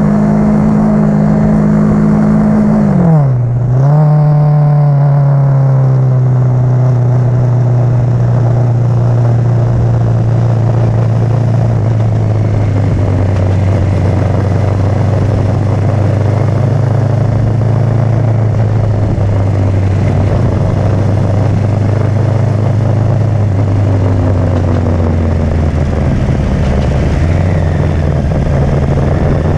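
Kawasaki Z650 parallel-twin engine pulling hard, with the revs dropping sharply about three seconds in at a gear change and climbing again. It then settles into steady cruising revs, with wind rush over the engine note.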